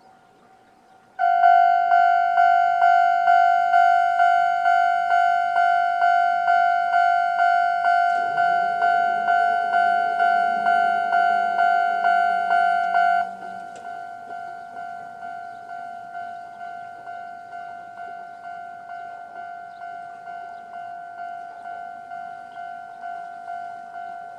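Japanese level-crossing alarm starting up with the old-type standard electronic bell tone, a ding repeating about twice a second. A low hum joins partway through. About 13 seconds in the ringing turns much quieter and keeps going. It is the warning that a train is approaching.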